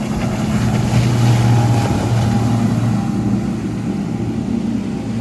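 Motorboat engine running as the boat passes through the inlet: a steady low drone that is loudest about a second in, then eases slightly.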